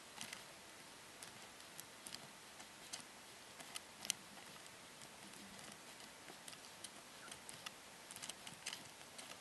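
Faint, irregular small clicks and taps over a steady low hiss, from brush-painting a miniature by hand. The sharpest tick comes about four seconds in.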